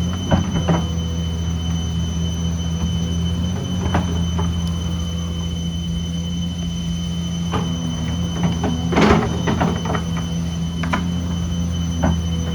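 Excavator engine running steadily, with scattered metallic squeaks and clanks from the arm and bucket and a louder clatter about nine seconds in.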